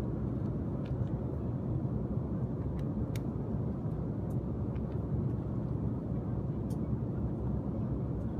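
Steady low cabin noise of an Embraer E195 airliner in flight, engine and airflow noise with no change in level. A few faint ticks from the paper safety card and magazines being handled.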